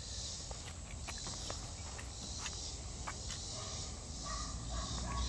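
A steady insect chorus, with soft rustling and a few light clicks as cotton twill clothing is handled and lifted out of a cardboard box.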